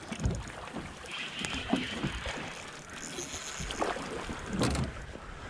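Boat on a river being turned by its oarsman: water moving against the hull, with a few low knocks from the oars and hull.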